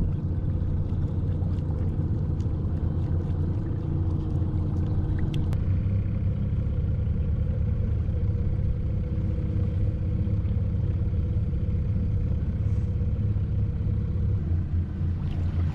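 Evinrude outboard motor on a combat rubber raiding craft running steadily under way, a constant low hum with water and air noise over it.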